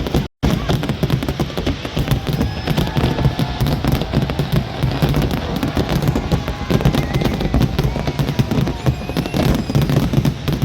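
Fireworks display: a dense, continuous barrage of bangs and crackles, with a momentary dropout in the sound about a third of a second in.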